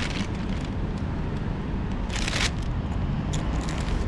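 Outdoor street background: a steady low rumble of road traffic, with two brief rustles, the louder about two seconds in.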